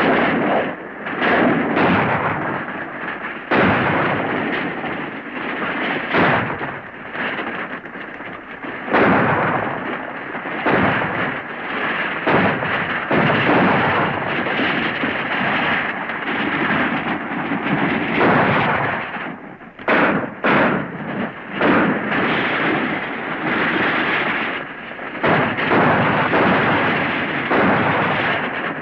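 Heavy gunfire: many shots in quick succession, overlapping and echoing, with a few separate shots and short gaps about two-thirds through. It is heard through a dull, narrow-sounding 1930s film soundtrack.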